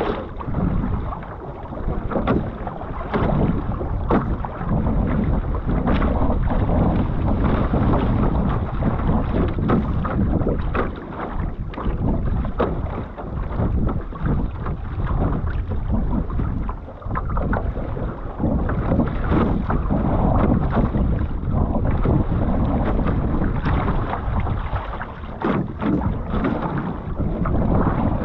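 Wind buffeting the microphone over water rushing and splashing along the hull of a one-person outrigger canoe as it is paddled through choppy sea, with irregular splashes from the paddle and the waves.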